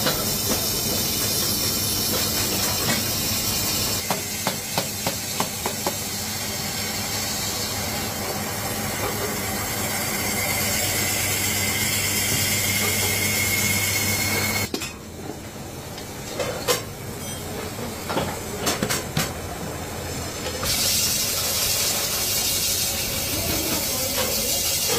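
Aluminium being worked on a spinning lathe in a workshop: a steady hiss of a hand tool against the turning metal, broken by runs of metal clicks and clinks, with a faint rising whine near the middle. The sound changes suddenly several times, quieter for a few seconds after the middle.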